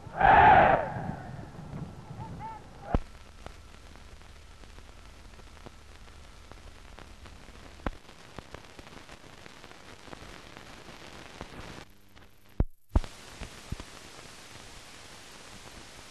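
Blank film soundtrack noise: a loud, short noisy burst in the first second, then a faint steady hiss with scattered clicks and pops, broken by a brief dropout and a couple of louder pops about twelve seconds in.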